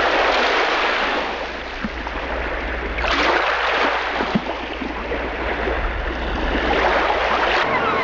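Sea surf washing on a beach: a steady rushing noise over a deep rumble, swelling about three seconds in.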